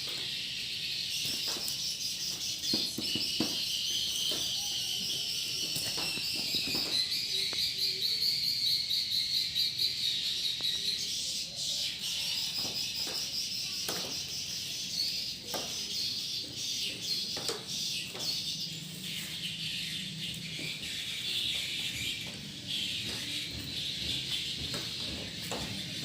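Swiftlets twittering continuously in a high, rapid chatter, with scattered sharp clicks throughout. These are live birds, since the house's sound-lure machine is dead.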